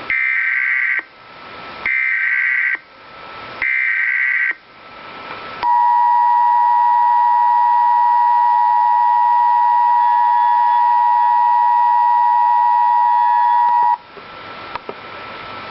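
Emergency Alert System signal: three one-second bursts of buzzing SAME header data with hiss between them, then the steady two-tone EAS attention signal (853 and 960 Hz) held for about eight seconds, heralding a severe thunderstorm warning. The tone cuts off suddenly near the end, leaving faint static.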